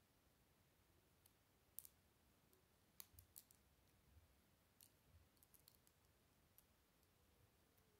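Small Lego plastic parts clicking and snapping faintly as a mini transforming Lego truck is folded into a robot by hand. The clicks come singly and in short quick runs, most of them around the middle.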